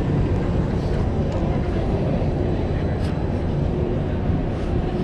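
Downtown street ambience picked up by a walking GoPro: a steady low rumble of city noise, with a faint click about three seconds in.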